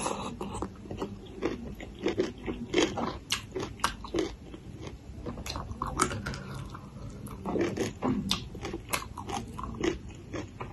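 Close-miked crunching and chewing of spicy papaya salad with raw vegetables such as long beans: repeated sharp, crisp crunches coming in bursts.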